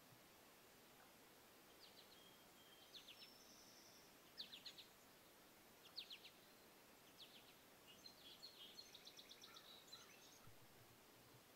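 Faint bird calls over quiet background hiss: short clusters of high chirps from about two seconds in, then a quick run of evenly repeated notes near the end.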